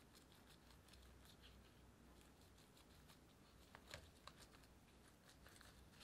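Near silence with faint rustles and light ticks of a gloved hand arranging shaped bread dough on parchment paper, with a slightly sharper click about four seconds in.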